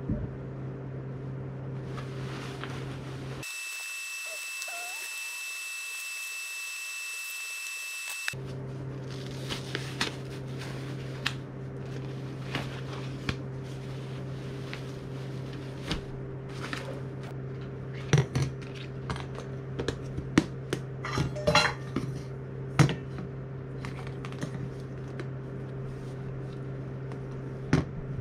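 Light clinks and knocks of small hard objects being handled, thickest in a cluster about two-thirds of the way through, over a steady low hum. For several seconds near the start the hum drops out and a thin high steady whine takes its place.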